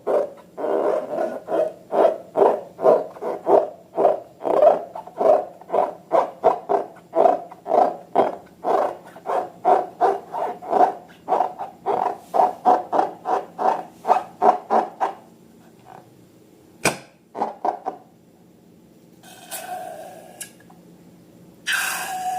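Slime being squeezed and kneaded by hand, squelching in a steady rhythm of about two and a half squishes a second for some fifteen seconds. Then it stops, a single sharp click follows, and near the end there are two short crackling bursts.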